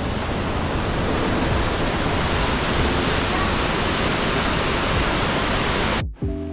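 Canyon waterfall pouring, a loud steady rush of water that cuts off suddenly about six seconds in.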